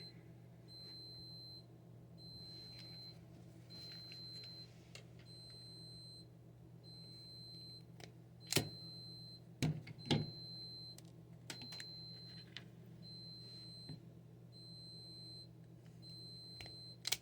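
Faint electronic beep repeating at a steady pace, about one short high beep every second and a bit, from a security system signalling that one of its cameras is offline. A steady low hum runs underneath, and a few sharp clicks come around the middle and near the end.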